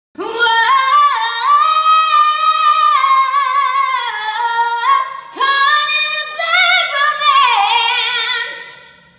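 A high-pitched voice singing two long, held phrases with no words and no accompaniment; the second phrase wavers with vibrato and fades out at the end.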